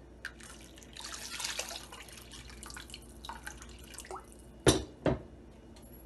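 Water pouring and splashing from a glass jug into a pot of rice and moong dal. Near the end come two sharp knocks, about half a second apart.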